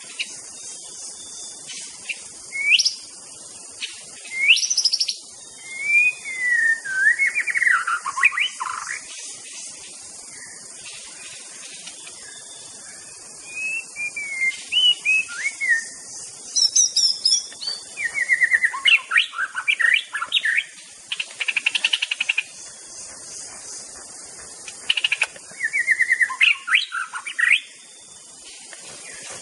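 White-rumped shama singing in separate bursts of whistled phrases, some swooping up and down and others fast trills, with pauses between them. A steady high hiss runs underneath.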